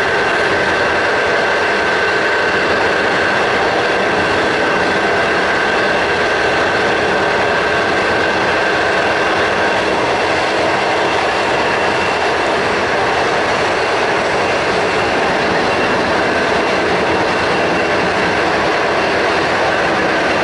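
Steady running noise of a moving train heard from inside the carriage: an even, loud rumble and hiss, with a thin high whine that drops away about halfway through.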